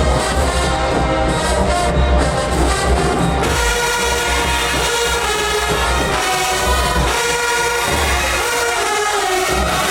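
Loud music with brass horns over a heavy bass beat, its sound changing about three and a half seconds in.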